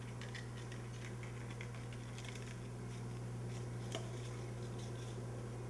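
Faint small clicks and taps from a model rocket body tube and its metal screw eye being handled, over a steady low hum; the sharpest tick comes about four seconds in.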